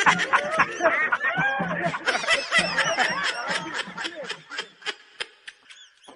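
Laugh sound effect: rapid snickering laughter in quick short bursts that fades away near the end.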